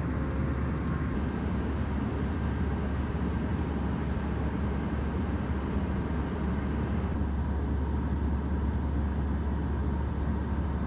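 Steady rumble and hiss of a jet airliner's cabin at cruise, heaviest at the low end. The hiss above it drops a little about a second in and again about seven seconds in.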